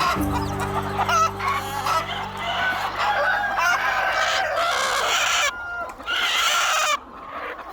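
A flock of chickens clucking and calling, with background music in the first few seconds that then fades out.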